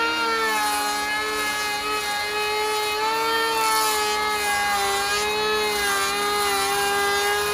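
DeWalt 18-volt cordless planer running at full speed, shaving a chamfer along the edge of a timber railway sleeper with its depth set to 1. The steady whine of the cutter block dips and recovers slightly in pitch as the blades bite into the wood.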